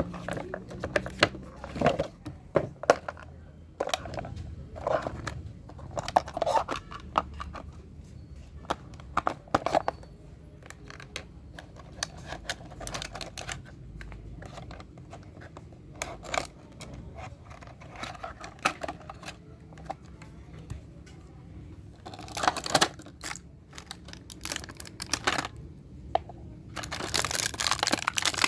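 Small plastic toys and their packaging being handled: scattered clicks and taps, with two longer crinkling, tearing rustles near the end.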